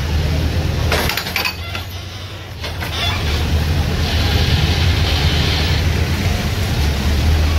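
CASE backhoe's diesel engine running under load, easing off for a moment and then revving up again about three seconds in. There is a clatter of knocks about a second in.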